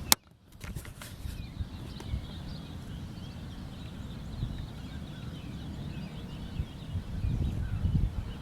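Wind rumbling on the microphone, with faint birds chirping over it. There is a sharp click right at the start.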